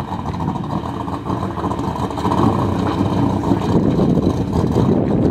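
Engine of a stock-car-style race car running steadily as the car drives past.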